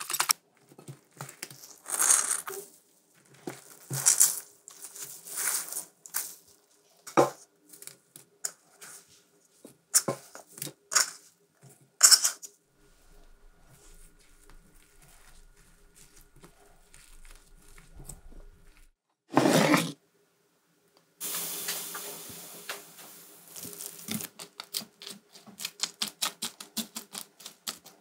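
Silicone spatula mixing milk-soaked bread cubes into beaten eggs in a bowl: a string of separate wet squelches, scrapes and knocks against the bowl. Later the mixture is worked in a frying pan, with quick taps, two or three a second, near the end.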